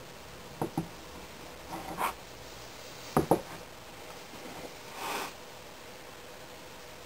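Wooden-framed sand-casting mould halves handled and set down on a wooden workbench: two sharp double knocks a few seconds apart, then a brief scrape of a knife in the casting sand about five seconds in.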